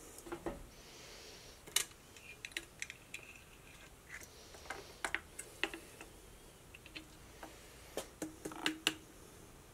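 Faint, irregular clicks and short scrapes of a thin metal hook tool working inside a chainsaw's plastic fuel tank through the filler neck, fishing out the loose fuel filter.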